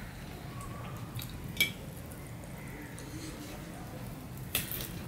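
Hand-eating sounds: fingers squeezing and mixing rice with a fried piece of food on a steel plate, soft and squishy, with two sharp clicks, the louder about a second and a half in and another near the end, over a low steady hum.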